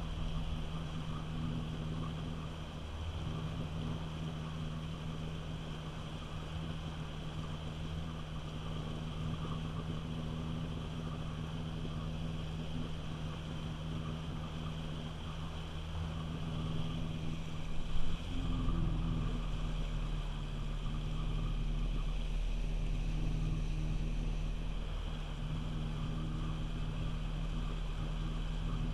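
Personal watercraft (jet ski) engine running steadily under way, with water rushing past the hull. A sudden thump about two-thirds of the way through is followed by a heavier low rumble.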